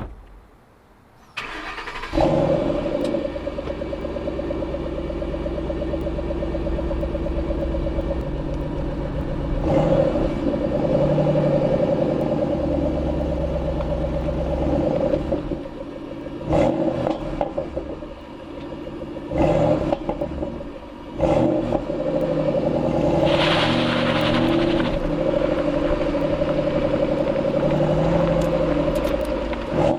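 Shelby GT500 Mustang V8 starting up about two seconds in with a loud flare of revs, then idling, with several short throttle blips and a longer rev later on.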